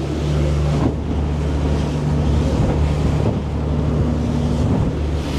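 Boat engine running steadily, a low even drone, with wind rushing over the microphone and the wash of water around the hull.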